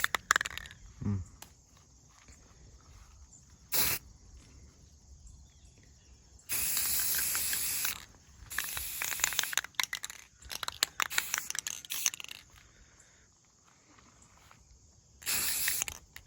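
Aerosol spray-paint can spraying gloss red in separate bursts of hiss: a brief puff about four seconds in, a steady burst a couple of seconds later, several shorter uneven bursts after it, and one more near the end.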